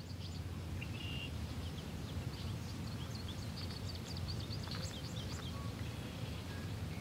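Outdoor ambience: many small birds chirping and twittering in quick, scattered calls over a steady low rumble.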